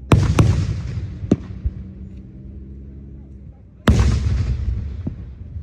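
Fireworks exploding: two loud booms about four seconds apart, each followed by a rumble that fades, with a few smaller sharp cracks in between.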